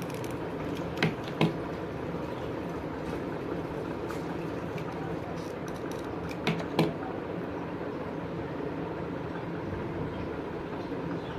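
Steady background noise with a low hum. It is broken by two pairs of light knocks, about a second in and again about six and a half seconds in, as objects are set down on a wooden tabletop.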